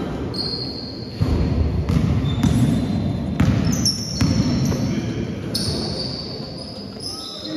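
Basketball bouncing on a sports hall's wooden court during play, several irregular thuds, with short high squeaks of trainers on the floor.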